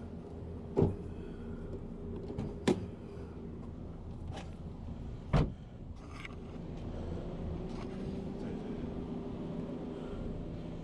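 Three sharp clunks from the car's door and hood latch being worked as the hood is popped open, over a steady low hum.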